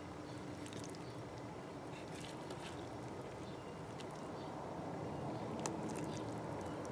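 Soft scrapes and a few light clicks of a serving spoon lifting sauerkraut, onions and chicken from a cast-iron Dutch oven into a glass bowl, over a faint steady background hum.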